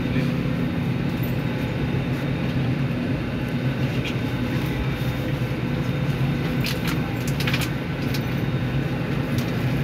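Steady low drone of an airliner cabin's air and ventilation system during boarding, with a few light clicks and knocks about two-thirds of the way in as passengers handle bags and overhead bins.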